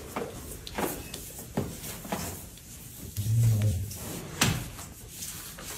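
A few light knocks and taps on a baby playpen's frame as a cat climbs along its rail, with one short low sound a little past the middle.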